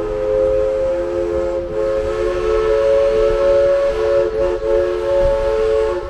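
Steam whistle of East Broad Top No. 16, a Baldwin 2-8-2 steam locomotive, blowing one long chord of three notes at a steady pitch that cuts off near the end, over the low running noise of the moving train.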